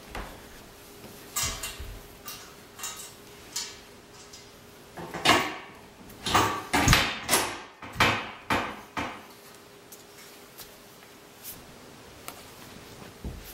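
Steel chainsaw-mill straight-edge sections being pushed and fitted together, metal clanking and knocking. A few light clicks come first, then a run of loud knocks from about five to nine seconds in.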